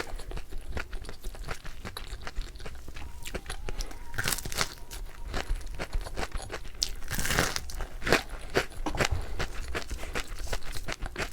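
Crispy fried chicken with a crunchy butter coating being bitten and chewed close to the microphone: many sharp crackling crunches, with louder clusters of bites about four and a half and seven and a half seconds in.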